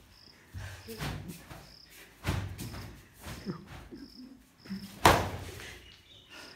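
Scuffling and thumps of players dodging and striking, with a sharp smack about five seconds in and another hit a little after two seconds. Faint short high-pitched chirps repeat every second or so underneath.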